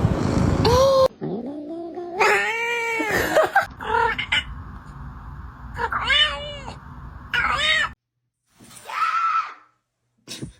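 Cats meowing and yowling: about five separate drawn-out calls, each rising and then falling in pitch, with short silent breaks between some of them.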